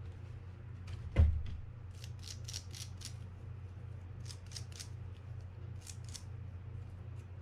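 Quick scratchy scrubbing strokes on the fishing reel's small metal line roller as it is cleaned of light rust, coming in a few short runs. There is one thump about a second in, over a steady low hum.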